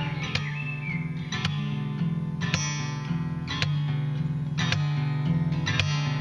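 Acoustic guitar strummed in a steady rhythm, about one strong strum a second over a shifting low bass pattern, with no vocals.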